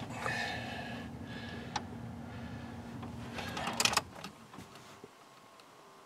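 A new Dorman blend door actuator in a Ford F-150 dash whirring as it drives the temperature blend door, a sign that the replacement actuator is working. A steady hum runs under it and stops about four seconds in, just after a few clicks.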